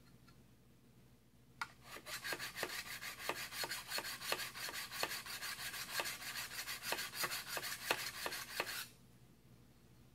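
Sharpening stone rasping in quick back-and-forth strokes along the edge of a carbon-steel card scraper, honing the edge flat and taking off the burr. The strokes start about a second and a half in and stop abruptly near the end.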